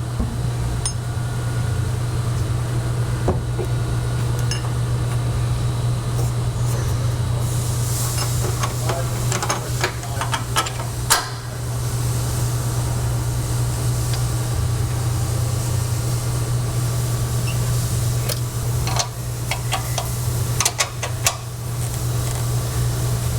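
A steady low hum from running shop equipment, with scattered sharp clicks and knocks as suspension parts are handled and lined up, clustered in two spells through the middle and near the end.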